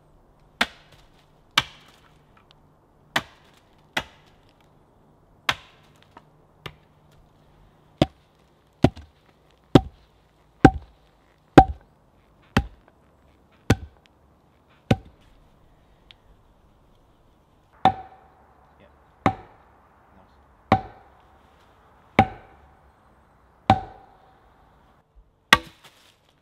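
An axe chopping into a wooden pole stood on a stump chopping block, cutting a point on a stake. There are about twenty separate blows, roughly one a second, with a pause of about three seconds midway, and many of the blows ring briefly.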